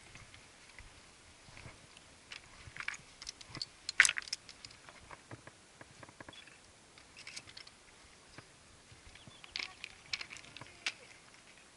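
Hiking footsteps on a rocky scree trail: irregular crunches and clicks of boots and loose stones, with one sharp knock about four seconds in.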